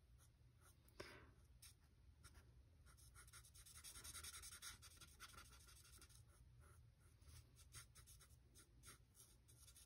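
Faint scratching of an alcohol marker's nib stroking over cardstock while colouring in, in many short strokes, a little louder near the middle.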